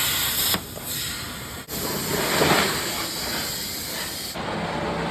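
Loud, steady hissing noise that breaks off abruptly and resumes about half a second and 1.7 seconds in, swells briefly around the middle, then drops to a quieter hiss near the end.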